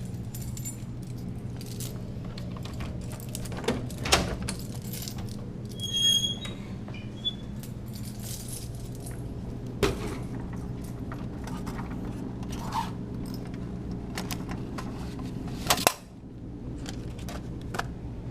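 Scattered clicks, knocks and metallic clinks of a vending machine being unlocked and worked on, with a brief ringing clink about six seconds in, over a steady low hum.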